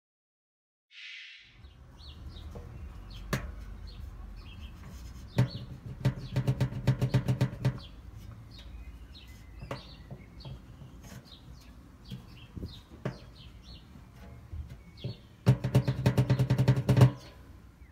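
Samsung washing machine drum turning with a low rumble and scattered sharp clicks. Twice, about five seconds in and again near the end, it breaks into a couple of seconds of rapid loud clattering from the drum.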